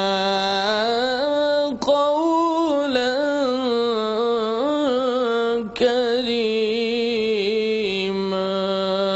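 A man chanting in a slow, melismatic voice through microphones, holding long wavering notes. He pauses briefly for breath twice, about two and six seconds in.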